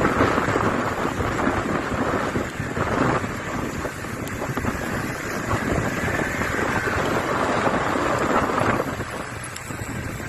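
Wind buffeting the microphone: a rough, rumbling noise that rises and falls and eases off somewhat near the end.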